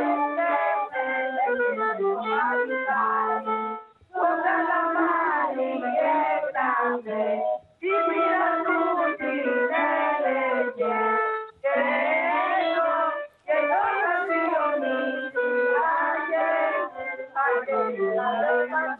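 A group of children singing Greek New Year's carols (kalanta) in phrases of a few seconds with brief breaks between them, with instruments playing along.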